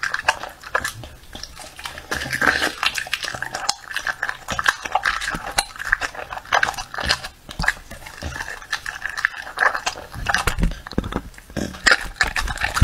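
A dog chewing and smacking on raw meat taken from the hand, a close run of wet mouth clicks and smacks.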